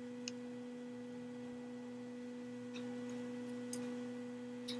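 Steady low electrical hum with a higher overtone, under a few faint light clicks as a laptop logic board is handled in its case.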